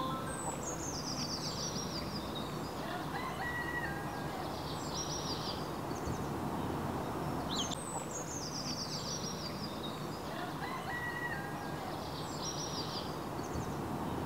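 A songbird sings the same short song twice, about seven seconds apart: a quick run of high notes falling in pitch, with a few shorter calls between. Under it runs a steady outdoor background hiss.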